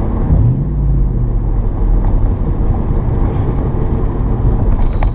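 Car engine and exhaust heard from inside the cabin while driving, one of its two mufflers removed. A loud, deep drone whose pitch rises briefly as the car accelerates near the start, then holds steady.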